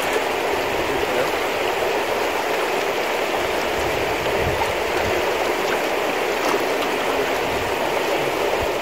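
Shallow river water flowing and rippling over a gravel bed, a steady rush with no pauses.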